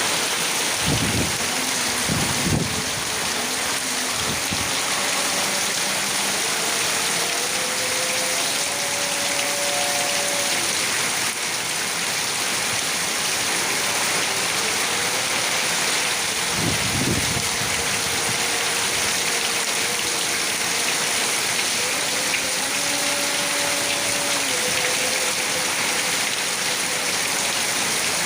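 Heavy rain pouring down in a steady, dense hiss. Brief low rumbles come about a second in and again partway through, and a faint drawn-out tone wavers in pitch far in the background.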